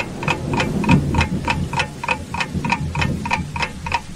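A clock ticking steadily at about three ticks a second, over a low rumble that thins out toward the end.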